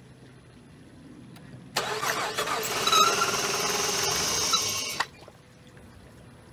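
Coolant and air spurting out of the open radiator filler neck of a six-cylinder engine, a loud gushing spray that starts about two seconds in and cuts off suddenly about three seconds later. Compression escaping through the failed gasket into the cooling system blows it out: the sign of a blown head gasket.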